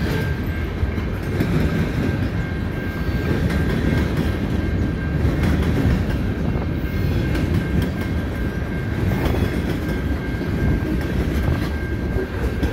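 Freight cars of a CN freight train rolling past: a steady rumble of steel wheels on rail, with a thin, steady high tone running through it.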